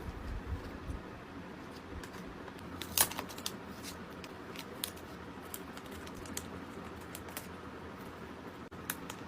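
Scattered light clicks and taps of hands handling photocard packing materials, with one sharper click about three seconds in.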